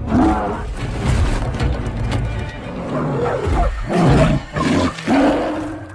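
Brown bear roaring and growling, several roars one after another over a low rumble.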